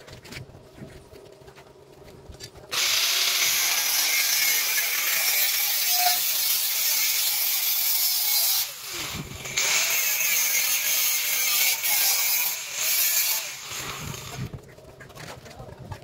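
Electric angle grinder with a thin abrasive disc grinding the end of a stainless steel square pipe, a loud steady hissing grind. It starts about three seconds in, breaks off briefly around nine seconds, then resumes and stops near the end.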